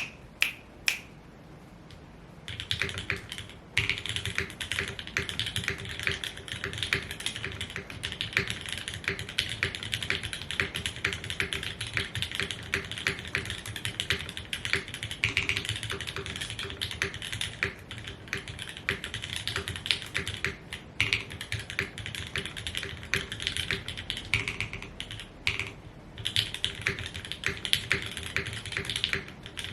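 Mechanical keyboard being typed on: a Frog TKL with lubed Gateron Oil King linear switches on an aluminium full plate, under GMK keycaps. A few single key presses come first, then a steady fast run of keystrokes with a few short pauses.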